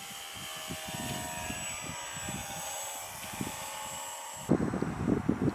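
Multiplex FunCub's electric motor and propeller whining in flight, several steady high tones over a faint hiss. About four and a half seconds in it cuts off abruptly and gives way to gusty wind rumbling on the microphone.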